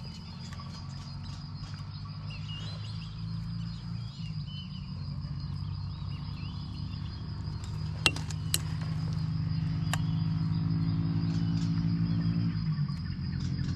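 Insects trilling with one steady high note, and a few bird chirps, over a louder low droning hum that swells and shifts near the end. Three sharp clicks come about eight to ten seconds in.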